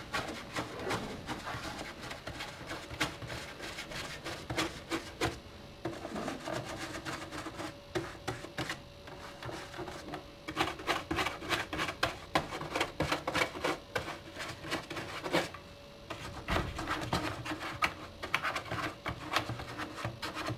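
Small cleaning brush scrubbing over a desk telephone's keys and grooves: rapid, irregular scratchy clicks and plastic rattling that come in spells with brief pauses between them.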